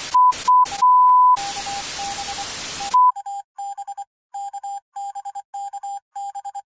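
TV static hiss cut by loud test-tone beeps: two short beeps and a longer one, then more static under a lower pulsing tone. About three seconds in the static stops and the lower tone beeps on alone in rapid short and long pulses, like Morse code.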